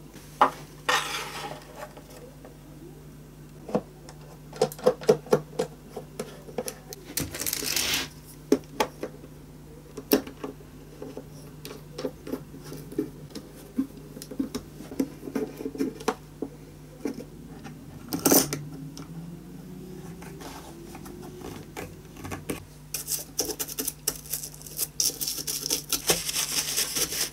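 Small plastic spool clamps clicking and knocking as they are set and screwed down one after another around the edge of a violin top being glued onto its ribs, with irregular taps and short rubbing and rustling noises. A steady low hum runs underneath.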